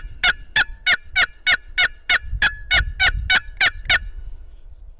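Wooden turkey box call worked in a long, even run of yelps, about three a second, which stops about four seconds in.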